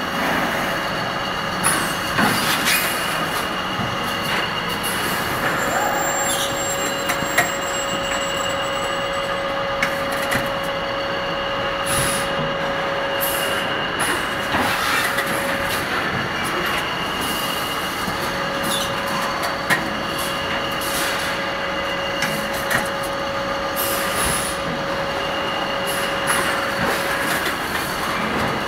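Meat-processing and packing-line machinery running: a steady mechanical din with a held whine that drops out for a few seconds mid-way, and scattered sharp clicks and clatters.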